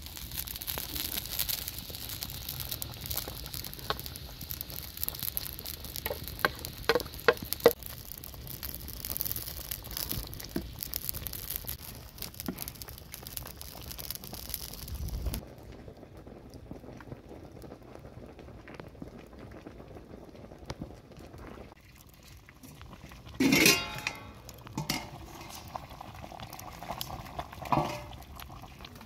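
Chicken and pepper stew sizzling in a large metal pan over a wood fire, with a wooden spatula stirring and knocking against the pan. The sizzle drops away about halfway through, and a loud clatter comes near the end.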